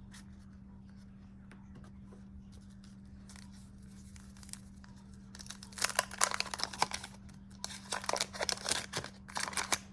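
Wax paper wrapper of a 1989 Fleer baseball card wax pack being torn open and crinkled. It starts about halfway through as a run of crackles and tearing. Before that there is only a faint steady low hum.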